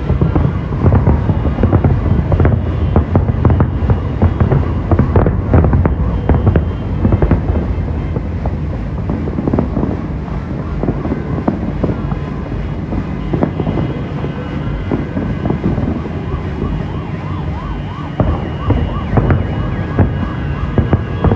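Fireworks going off: a dense run of bangs and crackles over a heavy low rumble, sharpest and loudest in the first seven seconds or so, then a steadier, thinner crackle.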